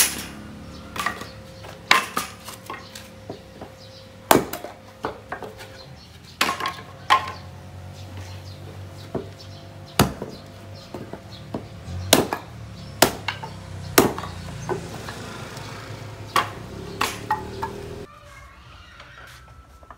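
Hatchet splitting white oak smoke wood into small pieces on a chopping block: sharp, irregular chops about once or twice a second, stopping shortly before the end.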